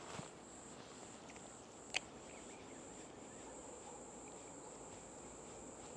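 Crickets chirping in a steady, high, unbroken trill over a faint even hiss, with a single sharp click about two seconds in.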